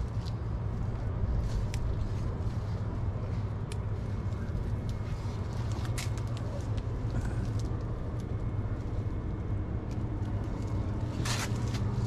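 Tomato plants being handled and ripe tomatoes picked by hand: a few short clicks and rustles of stems and leaves, over a steady low background hum.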